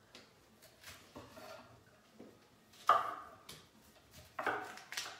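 Kitchen knives chopping cauliflower on wooden cutting boards: irregular knife strikes against the boards, the loudest about three seconds in.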